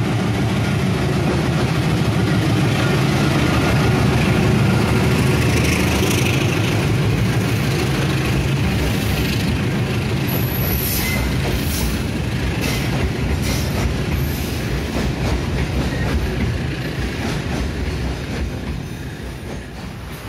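Diesel locomotive hauling a freight train of tarp-covered wagons past the platform. The engine rumble is strongest at first, then the wagons roll by with their wheels clicking over the rail joints, and the sound fades near the end.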